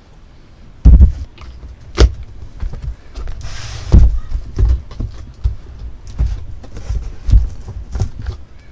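Handling noise from unboxing: irregular knocks and thumps of cardboard packaging and parts being moved, with a brief rustle of packing material partway through.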